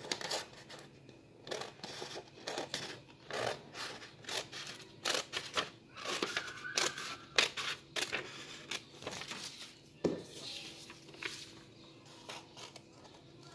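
Scissors snipping through printer paper along a traced pattern outline: a run of short, irregular cuts.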